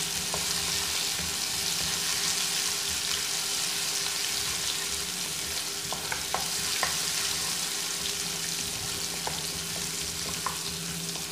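Garlic paste sizzling steadily in hot mustard oil with dried red chillies and panch phoron, being fried until browned as the tempering for a dal. A wooden spatula stirs it, knocking lightly against the pan a few times.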